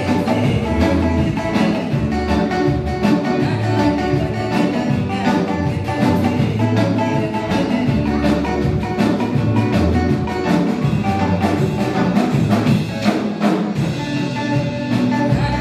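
Live gospel band music with a drum kit and bass playing a steady upbeat groove.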